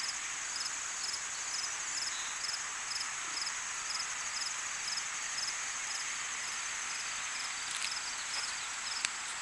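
Crickets and other insects calling: a steady high trill, with a separate chirp repeating about twice a second, over a dense high hiss of insect song. A single sharp click near the end.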